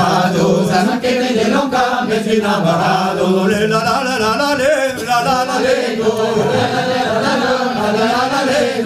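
A small mixed group of voices singing a cappella, chant-like, with a low held note under the moving melody.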